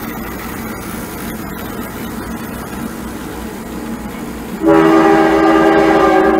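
Model freight train rolling along three-rail O gauge track with a steady rumble of wheels, then about four and a half seconds in the model diesel locomotive's sound system sounds its horn in one loud held blast.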